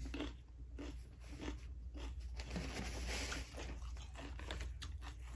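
Close-up chewing of crunchy raw vegetables: a run of small, crisp crunches, with a breathy hiss about three seconds in.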